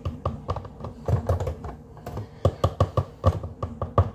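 A utensil clicking and knocking against a mixing bowl in a fast, irregular run while cookie dough is being worked by hand.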